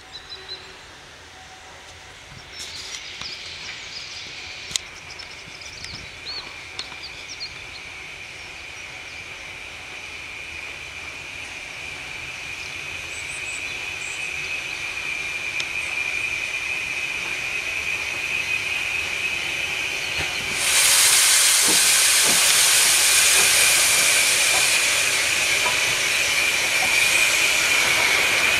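Two steam locomotives double-heading a passenger train, LMS Ivatt Class 4MT 43106 and BR Standard Class 2MT 78018, drawing slowly closer round a curve. A steady high wheel squeal grows louder as they near, and about 20 seconds in a loud hiss of steam starts suddenly as the engines come level.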